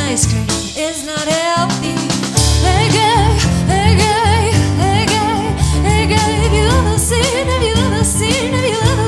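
Live pop song: a woman singing over Yamaha keyboard chords and a drum kit. The accompaniment thins out briefly, then the full band comes back in about two and a half seconds in, under a sung line with a wavering pitch.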